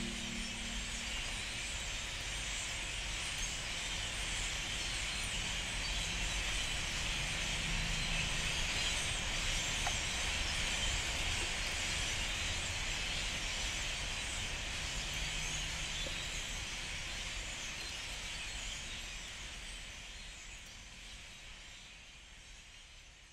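Steady ambient noise: an even hiss over a low rumble, fading out near the end.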